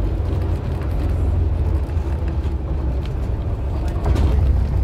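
Vintage bus driving along a country lane: a steady low rumble of engine and road noise, with an oncoming car passing close by about four seconds in.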